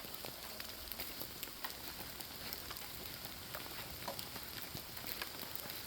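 Light rain falling in woodland: a steady soft hiss with scattered drops ticking on leaves.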